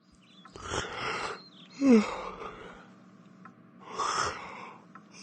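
A person snoring: two long, noisy breaths about three seconds apart, with a short falling groan between them.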